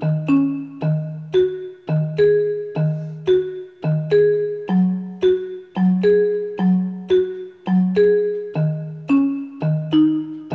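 Background music: a bouncy keyboard tune of short, evenly spaced notes, about two a second, a low note alternating with higher ones.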